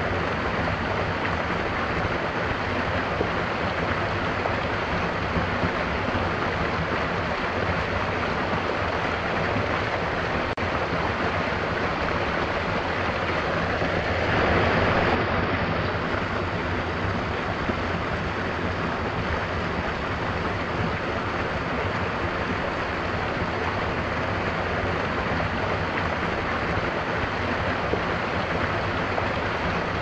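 A small stream cascade splashing steadily over rocks into a pool, with a brief swell in the rush about halfway through.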